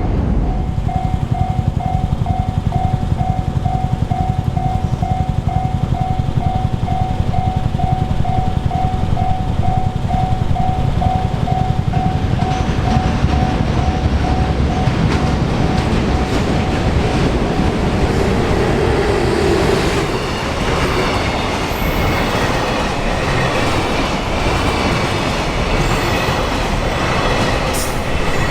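A Japanese railway crossing's electronic warning bell ringing about twice a second over the heavy rumble and clatter of a passing train. The bell stops about two-thirds of the way through while the train keeps rolling by. A high wheel squeal joins in near the end.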